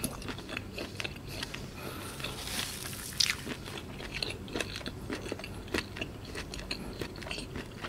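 Close-miked chewing of a mouthful of seafood with the mouth closed: wet mouth sounds with irregular small clicks and crunches, one louder about three seconds in.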